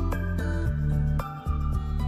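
Instrumental background music: a steady low bass under a melody of separate notes.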